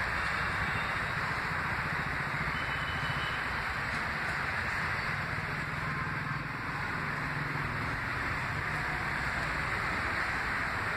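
Steady rushing background noise with a low hum underneath, even throughout, with no distinct events.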